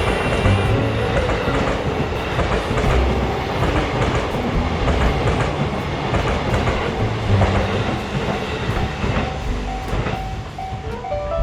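A train passing: a steady rumble with repeated clacks of the wheels over the rail joints.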